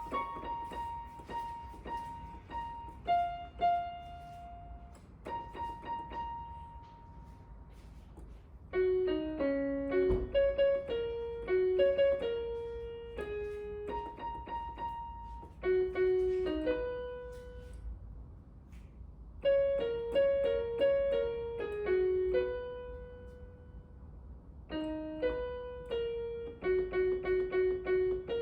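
Background piano music: a light melody of single notes played in short phrases, with a few soft pauses between them.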